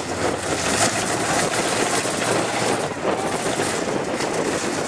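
Chevrolet square-body pickup truck's engine running as the truck churns through a mud and water pit, a steady noisy rumble with no sharp events.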